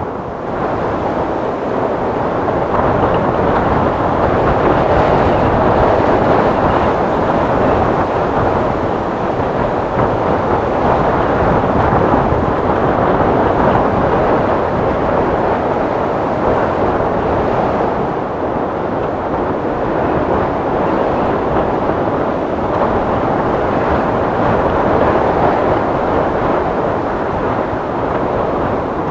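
Wind sound effect: a steady, rushing wind that rises about a second in and then swells and eases slowly.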